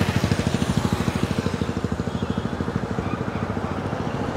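A road vehicle's engine running with a rapid, even beat, slowly fading as it moves away.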